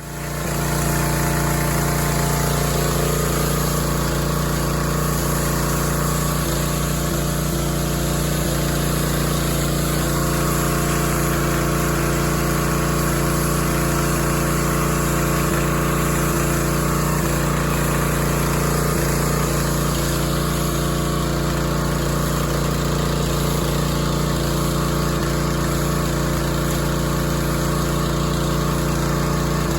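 Pressure washer's engine running steadily at one unchanging pitch.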